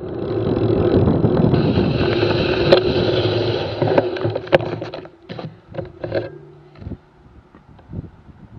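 Bicycle rolling on a paved trail: wind on the microphone and tyre rumble with occasional knocks. About five seconds in it drops away sharply as the bike slows to a near stop, leaving scattered clicks and thumps.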